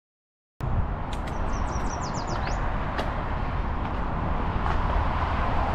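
Mountain bike rolling along a trail: steady rumbling noise with wind on the microphone, slowly growing louder, with scattered sharp clicks and rattles from the bike. A bird sings a short run of quick falling chirps about a second and a half in.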